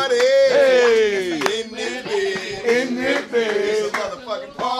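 Men's voices singing a drawn-out chant: a long held note slides down in pitch over about a second, followed by shorter phrases, and the same phrase starts over near the end.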